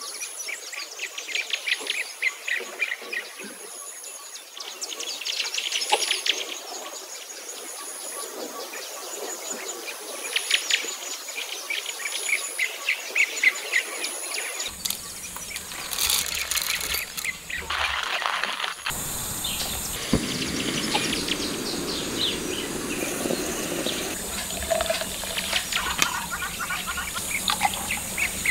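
Birds singing and calling in a morning chorus, many short chirps and whistles, with a thin high buzz repeating in pulses. About halfway through, a low steady noise comes in under the birds, with a couple of sharp knocks.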